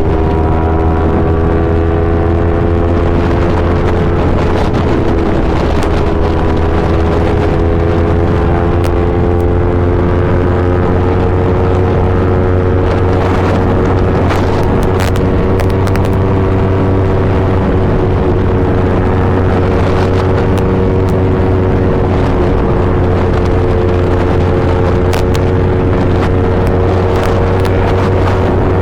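Yamaha R3's 321 cc parallel-twin engine running through an Akrapovic full-system exhaust, holding a steady engine speed with only slight, slow drifts in pitch.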